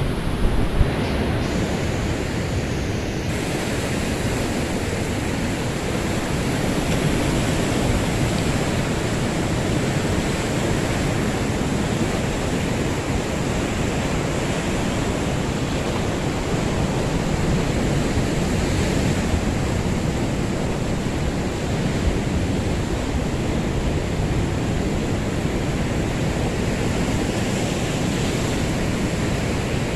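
Steady noise of surf breaking on a rocky, pebbly shore, mixed with wind rumbling on the microphone.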